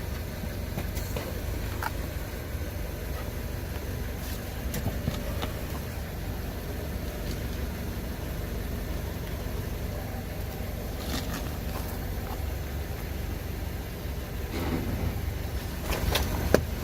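Car engine idling as the car creeps forward, a steady low rumble with scattered faint clicks. A louder run of sharp cracks and crunches comes in near the end.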